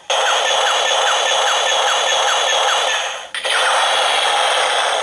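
Perfect Zecter toy's built-in speaker playing its electronic gun-mode sound effects: a rapid string of short falling zaps, about four a second, then after a brief break a second long blast that fades away. The sound is thin and tinny, with no bass.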